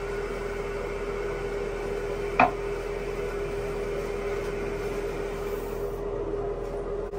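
Toilet tank refilling through a new fill valve: a steady hiss of running water with a steady hum, and one sharp click about two and a half seconds in.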